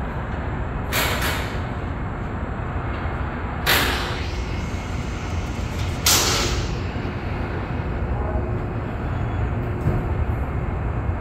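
Steady low rumble with three short blasts of hissing air, about one, four and six seconds in, the last the loudest, like compressed air being released in a workshop.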